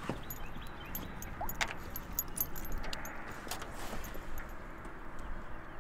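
Light metallic jingling and clinking of a dog's collar and leash clip as the dog moves and leans over the boat's side, a scatter of small sharp clicks over a steady background hiss.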